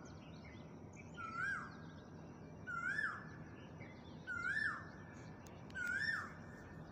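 A bird calling, faint, the same short rising-then-falling note repeated four times about every second and a half.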